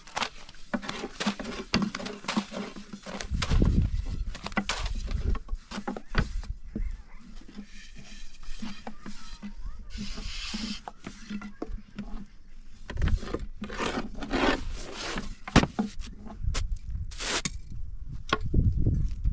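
Irregular knocks, clicks, scraping and rubbing of objects being handled, with two stretches of low rumbling, about three seconds in and again about thirteen seconds in.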